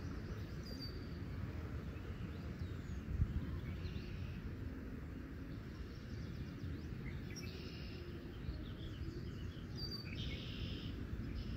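Beach ambience: a steady low rumble of wind and distant surf, with a few faint high bird chirps here and there and one soft thump about three seconds in.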